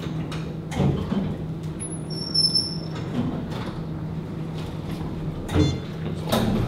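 Whole-body contamination monitor booths with a steady low electrical hum. Their sliding glass doors knock shut about a second in and twice near the end, and a brief high-pitched tone sounds between them.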